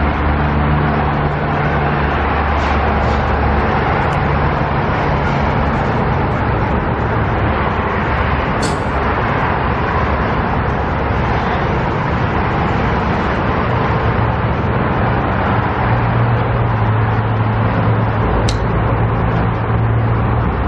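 Gas pump nozzle dispensing fuel into a car's tank: a steady rushing hiss, with a low engine hum underneath and a couple of faint clicks.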